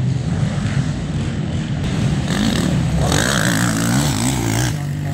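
Racing ATV (quad) engines running on a motocross track. About three seconds in, one quad comes through close, louder, its engine revving up and down for a second or two.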